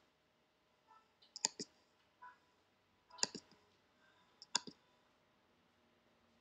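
Button clicks on a computer pointing device placing measurement points: three sharp double clicks about a second and a half apart, with a few fainter ticks between.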